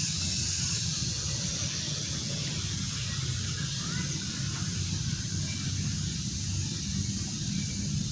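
A steady, high-pitched chorus of insects shrilling without a break, over a constant low rumble.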